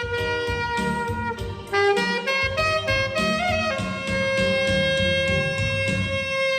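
Saxophone playing a melody over a low accompaniment. About a third of the way through it bends one note with vibrato, then settles into a long held note.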